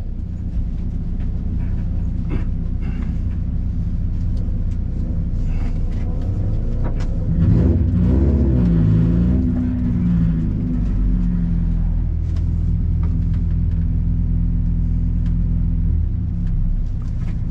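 Race car's engine idling, heard from inside the stripped cabin. About eight seconds in, the revs rise and fall for a few seconds, then it settles back to a steady idle.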